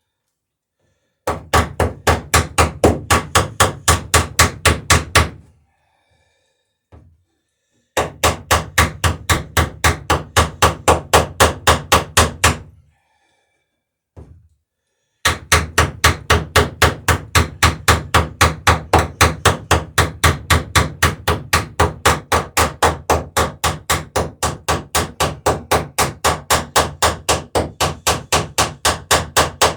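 Rapid, evenly paced hammer blows peening over rivets on a wooden dory's sheer strake, about four a second, in three runs with short pauses between.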